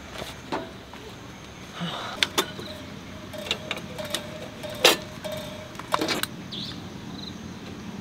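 Camping gear being handled: sharp clicks and knocks of metal hurricane lanterns being moved and set down on a metal shelf rack, with some rustling and a faint steady tone through the middle.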